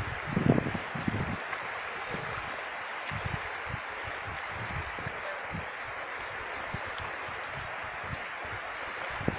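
Shallow river flowing steadily, a constant rushing of water, with a few low thumps in the first second or so.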